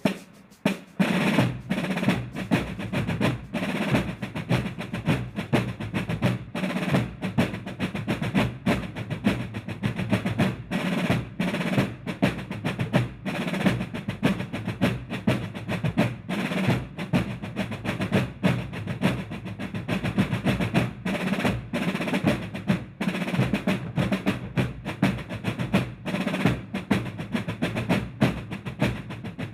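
Fireworks going off in rapid, continuous succession: a dense run of sharp bangs and crackling reports, many per second, beginning about a second in.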